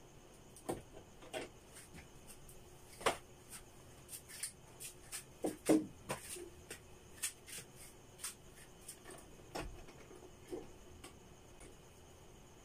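Irregular light clicks and taps of electrical wires and hand tools being handled at a plastic junction box while red wires are spliced together, the loudest knock about halfway through.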